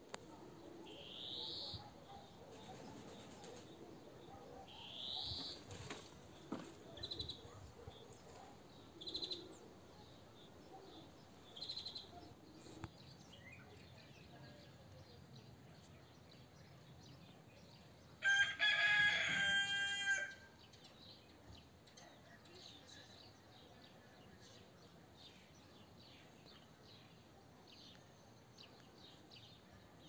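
A rooster crows once, loud and about two seconds long, a little past the middle. Before it, small birds give short rising chirps every couple of seconds.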